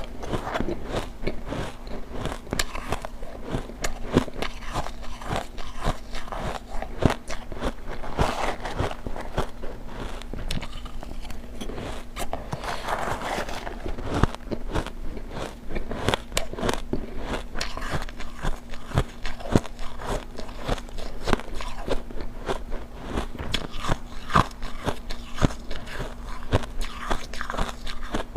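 Close-miked biting and chewing of refrozen block ice chunks: a dense, irregular run of sharp crunches and cracks.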